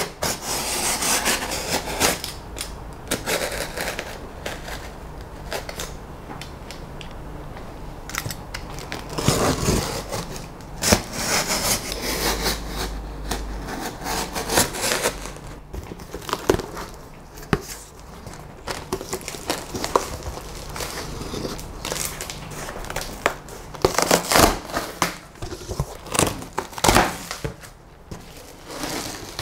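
A cardboard shipping box being cut open with a utility knife, then its flaps and foam packing handled: irregular scraping, slitting and rustling with occasional knocks.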